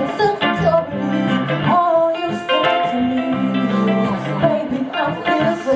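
Live music: a singer holding sung phrases over guitar accompaniment.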